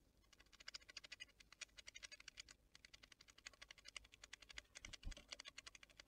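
Rapid, faint dry clicking and tapping of a small animal feeding at a forest seed feeder, many light taps a second with a short pause partway through and a soft knock near the end.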